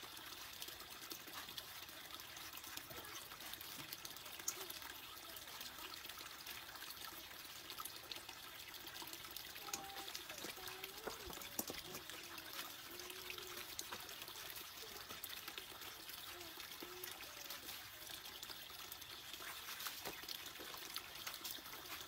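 Shallow stream water trickling over rocks, with soft splashing as hands wash in a metal basin of soapy water set in the flow.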